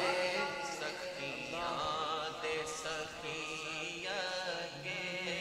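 Voices chanting a naat: a low drone held steadily underneath while a wavering, ornamented vocal line moves over it, quieter than the full sung verses.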